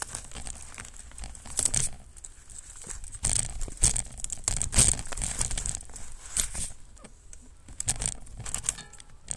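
Mountain bike ridden over snow, heard from a camera mounted on the bike: irregular crunching and crackling bursts, densest through the middle and again near the end.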